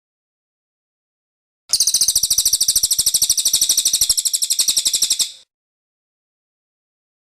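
Cililin songbird giving one rapid, high-pitched trill of about a dozen sharp notes a second, starting about two seconds in and lasting about three and a half seconds.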